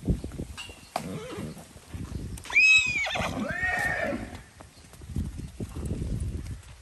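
A horse whinnies once, about two and a half seconds in: a loud high call that breaks into lower, falling calls for about a second and a half. Soft hoofbeats of a led mare and her trotting foal on dirt run underneath.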